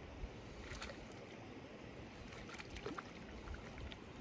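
Faint, steady rush of flowing creek water, with a few faint ticks.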